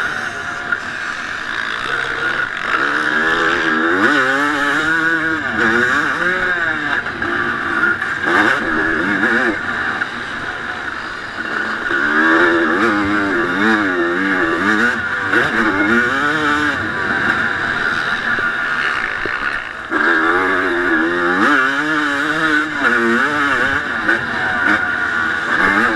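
Single-cylinder two-stroke engine of a 1989 Honda CR250 motocross bike, heard onboard while racing. It revs up and down, its pitch rising and falling repeatedly as the rider accelerates and backs off, with a sudden loud surge near the end.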